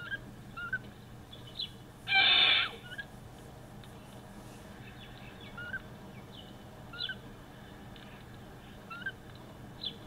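A corella gives one loud, harsh screech about two seconds in, lasting just over half a second. Short faint chirps from a smaller bird repeat every second or two throughout.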